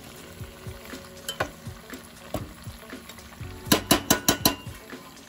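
Perforated steel ladle stirring mutton and tomatoes in a steel pot, scraping through the frying masala with a light sizzle underneath. A quick run of metal clinks comes about three and a half seconds in.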